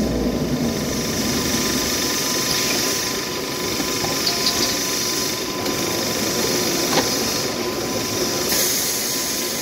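Toilet paper and kitchen towel rewinding machine running steadily, a continuous mechanical noise with a faint steady whine and a few light clicks, one sharper click about seven seconds in. A brighter hiss comes in near the end.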